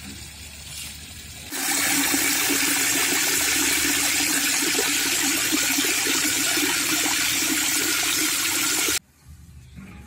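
Water pouring from a tap into a plastic bucket: a loud, steady splashing that starts sharply about a second and a half in and cuts off suddenly near the end.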